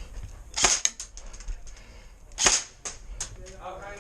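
Airsoft gun firing single sharp shots, the loudest about half a second in and again about two and a half seconds in, with a few fainter clicks shortly after.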